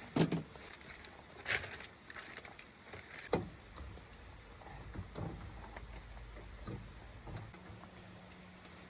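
A few sharp knocks and clinks of a cooking pot being handled on a camp stove burner, the loudest right at the start, then about a second and a half in and again around three seconds, with fainter taps after.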